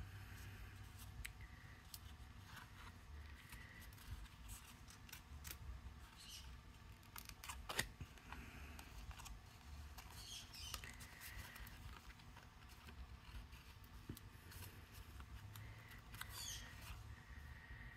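Faint rustling and light clicks of a stiff die-cut metallic cardstock piece being handled and flexed, with one sharper click near the middle. A few faint high squeaky chirps come and go over a low steady hum.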